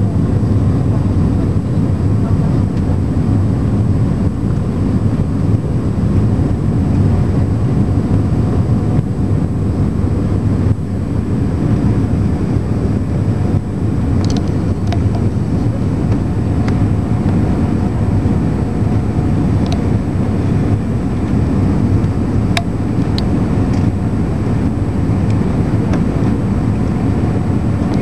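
Airbus A320 cabin noise in flight on the landing approach: the jet engines and rushing air make a steady low rumble, with a few faint clicks in the second half.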